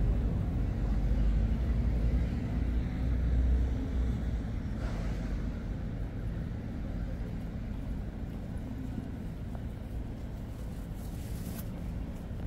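Street traffic noise: a low rumble, loudest over the first four seconds, then steadier and quieter.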